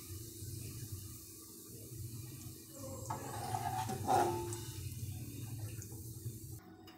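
Metal slotted spoon scraping and lifting fried onions in an aluminium pot of hot oil, with a few short scrapes and clinks, loudest about four seconds in. Under it a steady low hum and hiss, which cuts off abruptly near the end.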